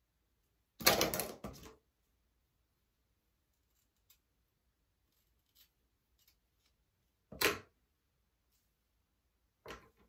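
Clicks and clatter of small hair tools, a comb and scissors, being handled: a rattling clatter lasting about a second near the start, then two sharp short clicks later on.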